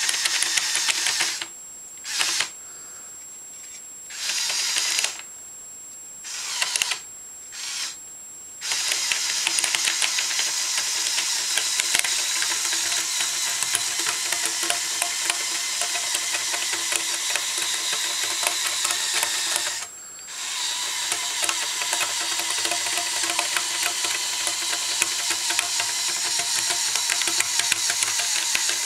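LEGO Technic 8043 excavator's Power Functions electric motors and plastic gear trains running, a steady whir with a dense rattle of clicks. In the first few seconds it starts and stops in short bursts. After that it runs steadily, with one brief stop about two-thirds of the way through.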